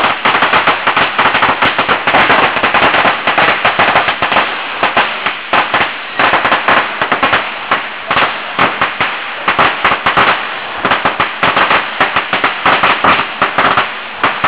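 Chinese firecrackers going off in a rapid, unbroken crackle of sharp bangs, the way a long string of New Year firecrackers burns through.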